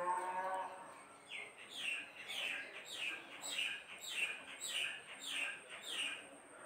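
A bird calling in a run of short chirps, each note falling in pitch, repeated a little more than every half second.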